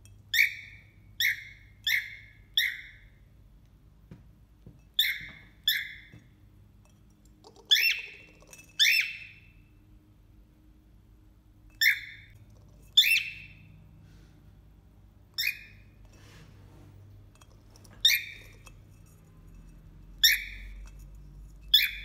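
Cockatiel giving short, sharp single-note calls, about fourteen of them: a quick run of four, then pairs and single calls a few seconds apart.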